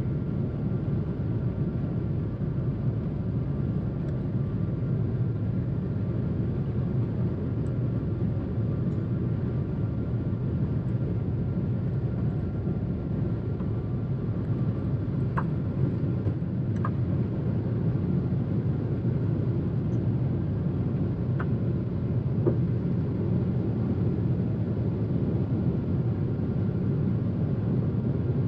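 Steady rumble of a Boeing 777-200's engines and airflow heard inside the passenger cabin, with a faint steady whine and a few faint ticks in the second half.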